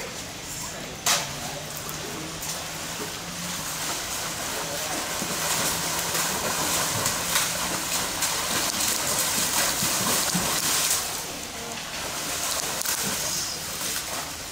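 Water splashing and sloshing in a concrete pool as a young tiger lunges and moves about in it, heaviest in the middle of the stretch. A single sharp knock sounds about a second in.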